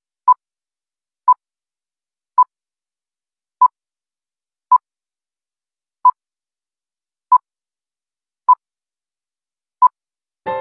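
Countdown beeps from a film-leader-style countdown intro: nine short, identical electronic beeps on one steady pitch, about one a second, with silence between them. Piano music comes in right at the end.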